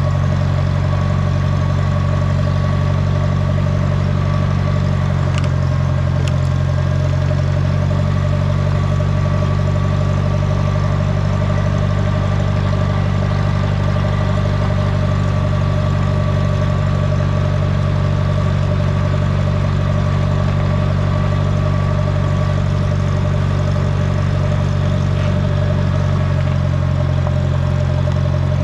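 Allis Chalmers Model D road grader's engine running steadily at a constant speed.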